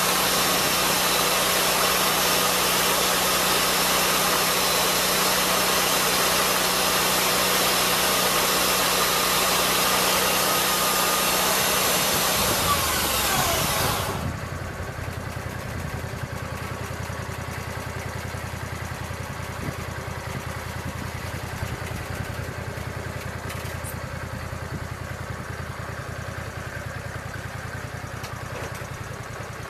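Lucas swingblade sawmill's engine running at full throttle as the circular blade saws through the log. About halfway through its pitch falls away, and it settles to a steady idle.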